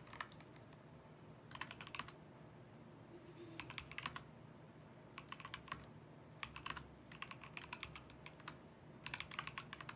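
Attack Shark K86 mechanical keyboard being typed on: short bursts of rapid key clicks, about six runs of keystrokes with brief pauses between them.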